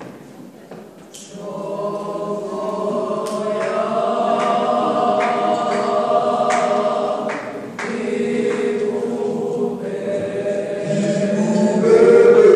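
Mixed choir of women and men singing a cappella in sustained chords, starting about a second and a half in and swelling louder near the end.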